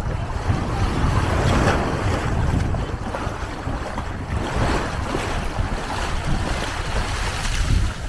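Sea waves washing on the beach, the wash swelling and falling, with wind buffeting the microphone as a steady low rumble.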